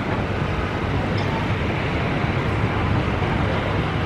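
Steady rushing noise of strong wind buffeting the microphone, mixed with the low rumble of airliner jet engines on approach.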